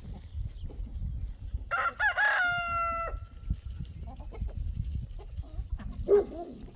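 A rooster crows once, about two seconds in: a wavering start, then a held note for about a second that cuts off sharply. A short call from the flock comes near the end, over a low rumble.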